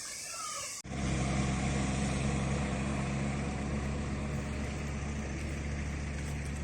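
Faint high insect chirring for under a second, then a sudden switch to an engine running steadily with a low hum.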